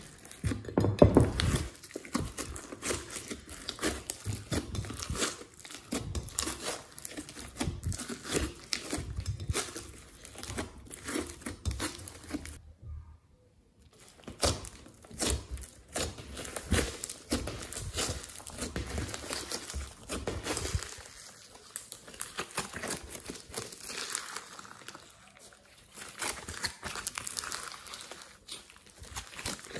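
Fingers squishing, kneading and stretching glossy slime mixed with glitter and foam, giving dense crackling, clicking squishes. The sound drops out for about a second near the middle, then resumes.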